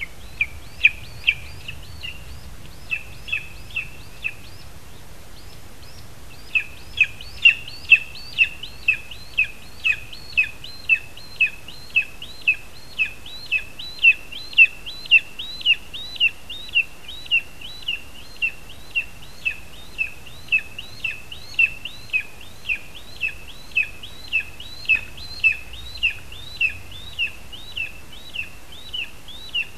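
Lesser spotted eagle calling at the nest: a long series of short, high, identical notes, about two a second, with a brief pause a few seconds in.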